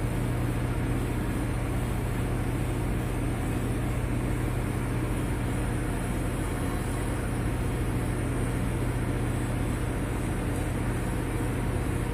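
TIG welding arc burning steadily on a steel pipe-to-flange joint: an even hiss over a low steady hum.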